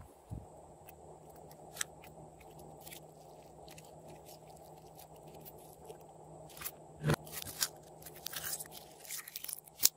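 Glossy slime being handled and kneaded by hand, making sticky squishes and scattered small clicks and crackles. In the last few seconds it is pushed into a plastic cup, and the crackling clicks come thick and fast, with one sharp loud click among them.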